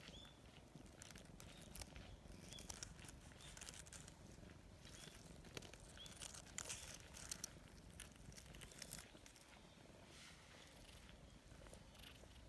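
Near silence with faint crackling rustles of dry leaves and fur as a hand strokes a cat lying in leaf litter, busiest around the middle.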